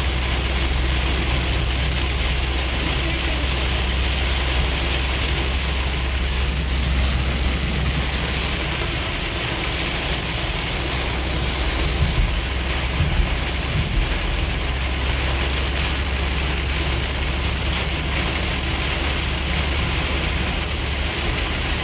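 Heavy rain hitting the windshield and roof of a 2006 Ford Freestar minivan, heard from inside the moving cabin over a steady low rumble of tyres and engine. A few brief louder thumps come about twelve seconds in.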